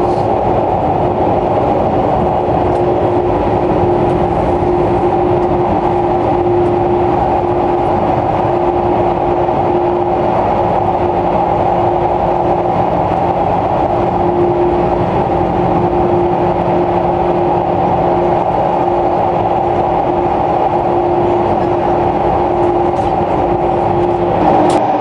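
Running noise of a JR 485-series electric multiple unit heard from inside a passenger car at speed: a steady, loud rumble of wheels on rail with a constant hum. The hum's pitch shifts slightly near the end.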